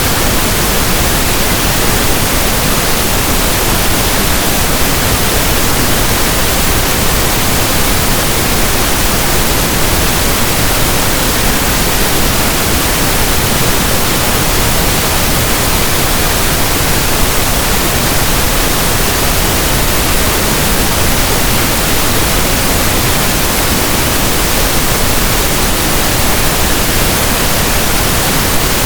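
Synthesized pink noise, steady and unbroken, sounding like static from a radio not tuned to a station.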